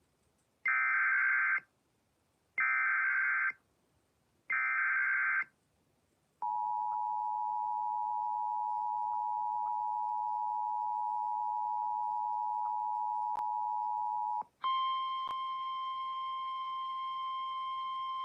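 Emergency Alert System fire warning header: three one-second bursts of warbling SAME digital header data about a second apart, then the two-tone EAS attention signal held steady for about eight seconds. It cuts straight to a single steady NOAA Weather Radio warning alarm tone.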